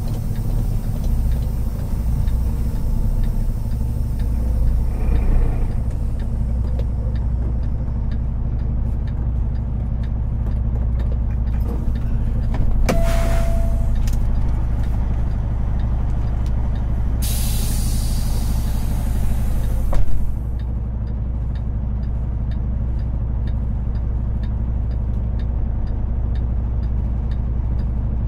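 Semi truck's diesel engine running steadily at low speed, heard from inside the cab. About 13 seconds in there is a short beep, and about 17 seconds in a hiss of air lasts some three seconds and ends with a sharp knock, as the air brakes are set.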